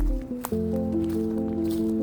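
Background music of sustained, held chords; the sound dips briefly and a new chord comes in about half a second in.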